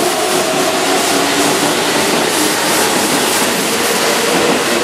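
Keihan 7200 series electric train running out along the platform: steady running noise, with a motor whine that rises slightly in pitch in the second half.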